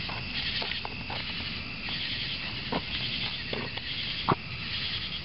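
Night insects chirping steadily in a pulsing high band, with scattered small clicks and rustles of handling close by and one sharp click about four seconds in.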